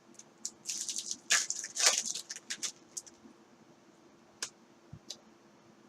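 Topps Chrome baseball cards being handled and flipped through: a run of quick rustling slides for the first few seconds, then a few sharp clicks near the end.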